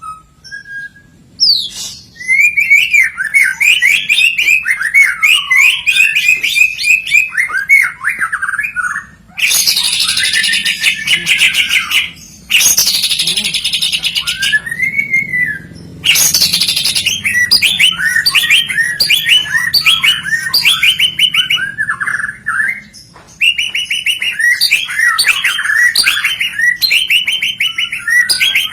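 White-rumped shama (murai batu) singing loudly and almost without pause: varied whistled phrases and quick runs of repeated notes, broken by harsh, rasping phrases about a third of the way in and again just past the middle.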